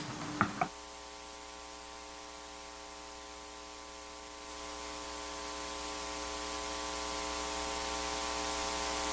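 Steady electrical hiss and buzzing hum from the broadcast's audio line or open microphone, after two short clicks under a second in; the hiss grows slowly louder through the second half.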